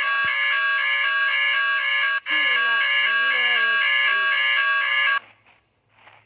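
Emergency alert system attention tone: a bright electronic alarm with many overtones, switching rapidly back and forth in a regular pattern. It drops out for an instant about two seconds in and cuts off about five seconds in, leaving near silence.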